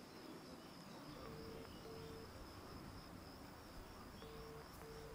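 Mobile phone ringback tone heard faintly through the earpiece: two double rings, each a pair of short beeps, as a call goes unanswered.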